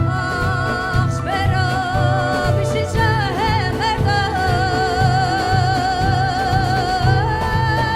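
Live Kurdish folk music: a long, wavering, ornamented melody line held over a steady low beat of about two pulses a second.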